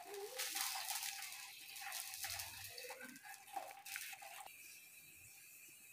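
Metal tongs handling a chapati on an iron tawa over a gas flame: faint scraping and rustling in the first second and again near four seconds, with a faint steady whine that stops about four and a half seconds in.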